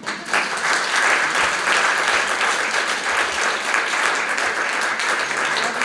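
Audience applauding: many people clapping steadily after a talk.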